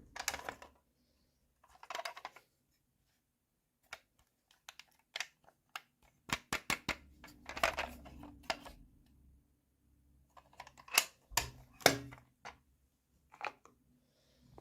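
Small plastic toy pieces being handled, giving irregular sharp clicks and taps with a few short rustles and scrapes.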